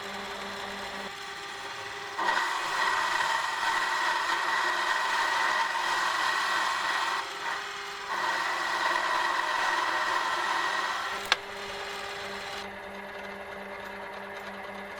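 Small workshop machine tool running with a steady motor hum, cutting oiled metal in two long spells of rough scraping noise with a short break between them. A single sharp click comes just after the second cut, and the motor stops near the end.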